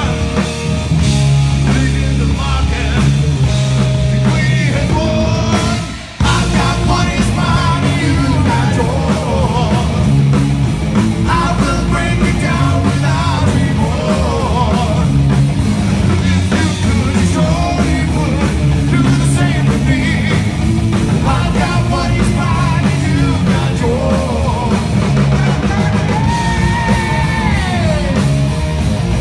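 Live rock band playing with a man singing over electric guitar and drums. The band stops sharply for a moment about six seconds in, then comes straight back in.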